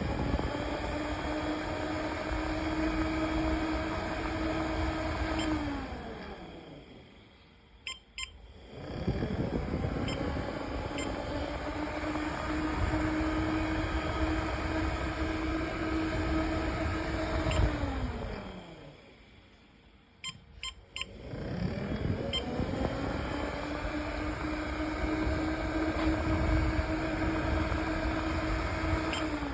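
Homemade electric tornado siren winding up to a steady wail, holding it for several seconds, then winding down, three times over. A few short clicks sound in the quiet gaps between cycles.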